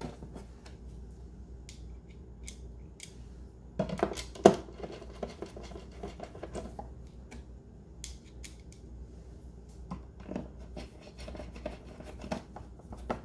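Hand screwdriver turning machine screws through a metal mounting plate into a television's VESA holes: small scraping and clicking of the tip in the screw heads, with a couple of louder knocks about four seconds in.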